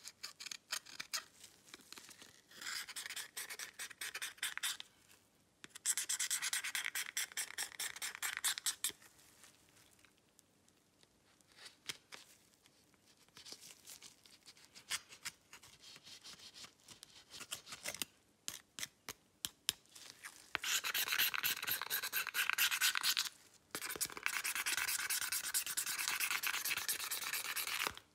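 Metal-tipped pick scratching the back and camera lens cover of a Samsung Galaxy A50 in several spells of rapid, rasping scraping strokes, with scattered light ticks from the tool in between; the longest spell comes near the end.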